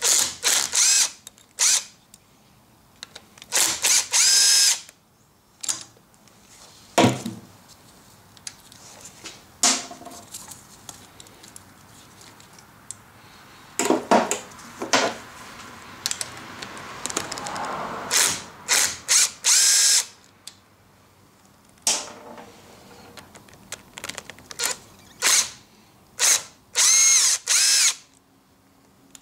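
Power drill with a socket on a long extension, spinning out the bolts of a diesel engine's stop cover plate. It runs in repeated short whining bursts with pauses between, the pitch rising and falling as the motor speeds up and slows.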